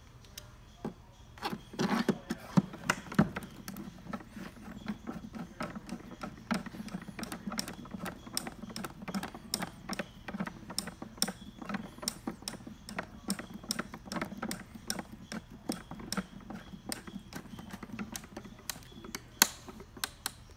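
Phillips screwdriver turning a screw into the plastic base of an instrument housing: a quick, irregular run of small clicks and scrapes, starting about a second and a half in.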